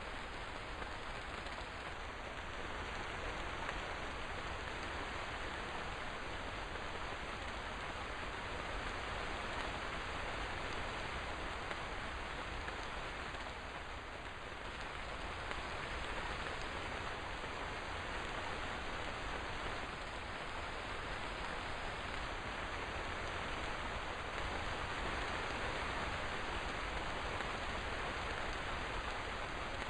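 Steady rain falling, an even hiss of drops on surfaces without any distinct events.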